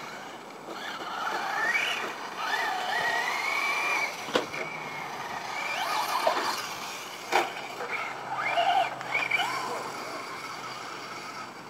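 Electric radio-controlled truck's motor and drivetrain whining, rising and falling in pitch as the throttle is worked through a lap, with a few sharp knocks about halfway through.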